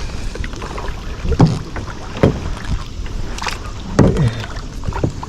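Kayak paddle strokes dipping and splashing in the water, four at uneven intervals, over steady water and wind noise.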